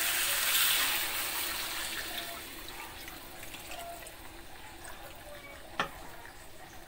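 Water poured from a plastic bowl into a hot wok of catfish pieces in chilli spice paste. The pour is loudest at first and then fades away. A single sharp knock comes near the end.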